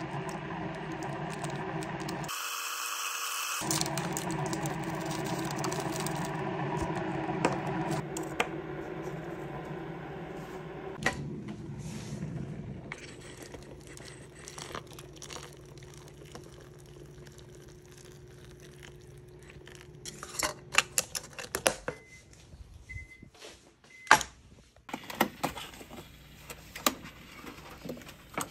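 A steady appliance hum for the first half, then a quieter stretch. Three short electronic beeps follow: a microwave signalling that heating is done. Sharp clicks and knocks come near the end as the microwave door is opened and the food container handled.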